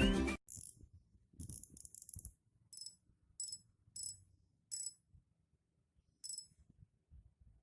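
Small mechanical clicks and rattles from handling an ultralight spinning reel: a short spell of rattling, then about five sharp, bright clicks a second or so apart. A loud tonal sound cuts off just after the start.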